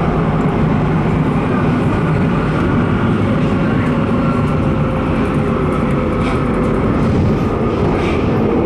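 Driverless U-Bahn train running through a tunnel, heard from inside the car: a steady rumble of wheels on rail with a faint motor whine over it.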